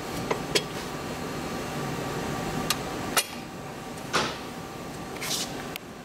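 Steel clutch collapse tool clinking against the CVT primary clutch as it is hooked on and set in place: a few sharp metallic clicks and knocks, the loudest about four seconds in, over a steady background hum.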